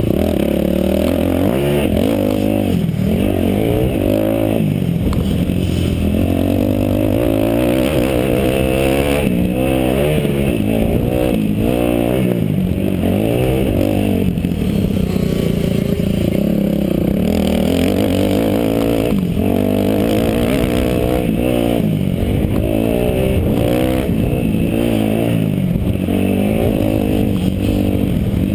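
Kawasaki KX250F four-stroke single-cylinder motocross engine at race pace, heard from on the bike, its revs rising and falling over and over as the throttle opens and closes and the gears change.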